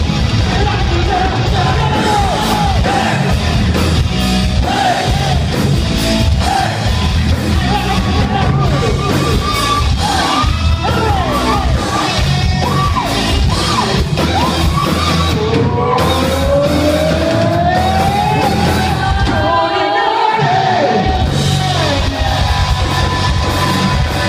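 Rock band playing live in a hall, with drums, bass and guitars and a voice singing and yelling over them. The bass and drums drop out briefly about twenty seconds in.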